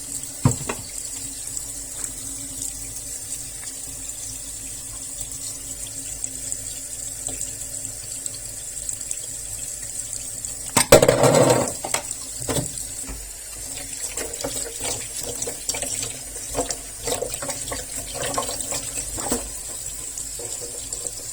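Water running from a tap into a sink while a part removed from an espresso machine is rinsed by hand. A loud clatter about halfway through, then lighter knocks and handling sounds.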